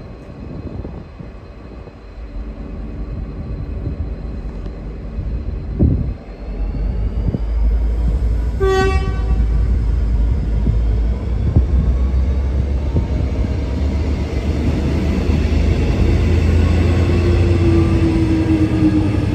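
V/Line N class diesel-electric locomotive running, its deep engine rumble swelling from about six seconds in and staying loud, with a faint rising whine. One short horn toot sounds about nine seconds in.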